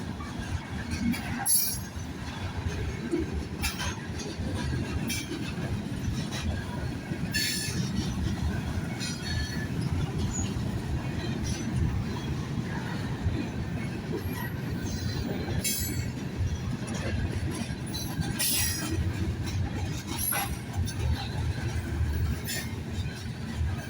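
Union Pacific train's railroad cars rolling on the track with a steady low rumble. Brief high-pitched wheel squeals and clanks come every few seconds.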